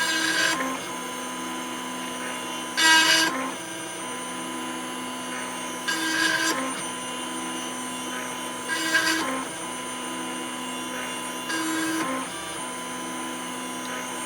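M40G engraving machine cutting into a wine glass: a steady motor whine with a louder, harsher burst about every three seconds as it works slowly through the engraving.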